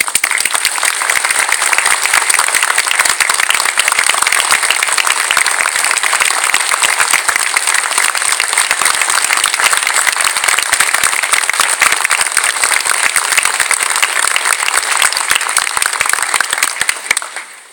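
Audience applauding: dense clapping that breaks out all at once and fades away near the end.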